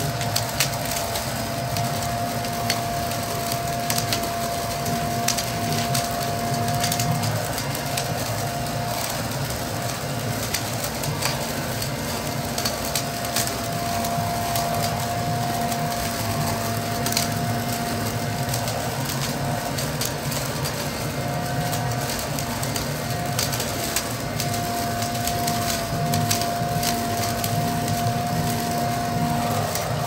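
Toro Ultra electric blower vac running in vacuum mode, its motor giving a steady whine while dry leaves and twigs are sucked up the tube and shredded by the impeller, with many sharp crackles and clicks.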